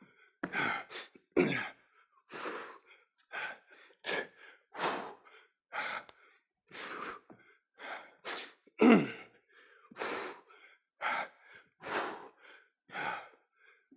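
A man breathing hard from exertion during a bodyweight exercise: quick, sharp breaths in and out, about one every half second to second, with one voiced breath about nine seconds in.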